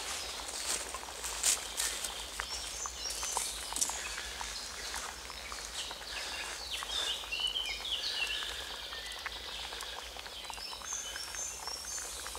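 Small woodland birds singing in short high chirps and trills, heaviest a few seconds in and again near the end, over scattered small crackles and rustles.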